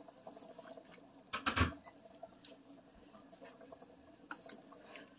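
Pot of chicken broth heating on an electric stove and coming to the boil, with faint bubbling and dripping and a few small ticks. A brief knock about a second and a half in.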